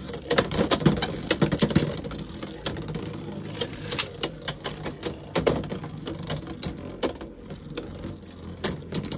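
Two Beyblade X spinning tops, Wyvern Gale and Drawn Sword, battling in a clear plastic stadium: they clack against each other and the stadium rim. The clicks come in a close run over the first two seconds, then singly as the tops circle.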